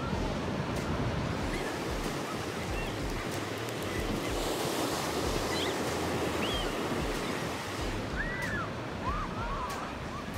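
Ocean surf washing in over a sandy beach, with waves breaking on a rocky reef beyond, and wind buffeting the microphone in low rumbles.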